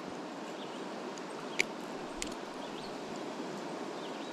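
Steady rush of a flooded creek's running water, with one sharp click about a second and a half in.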